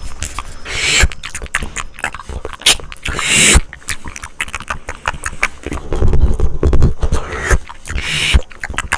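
Close-miked ASMR mouth sounds: rapid wet clicks and pops, with a few short breathy hisses, one about a second in, one near the middle and one near the end.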